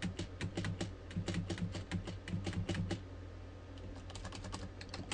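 Typing on a computer keyboard: a quick run of key clicks for about three seconds, then a few scattered keystrokes.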